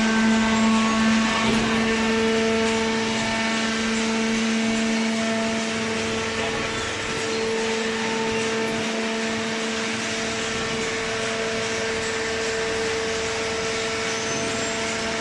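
Horizontal hydraulic baler's power unit running with a steady hum, holding one constant pitch over a noisy mechanical haze.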